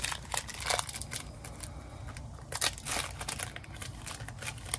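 Packaging of a Fujifilm video tape cassette being unwrapped by hand: an irregular run of crinkling, crackling and tearing.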